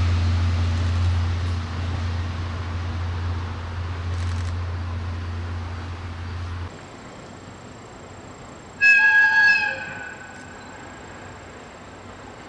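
The low rumble of a train fades away, then stops suddenly at a cut. About nine seconds in, an EF65 electric locomotive gives one short, high-pitched whistle blast lasting about a second.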